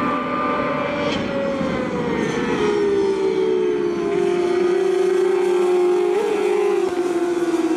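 Several J-GP2 racing motorcycle engines running together through a corner. Their pitch falls over the first few seconds as they slow into the bend, rises briefly about six seconds in, then holds fairly steady.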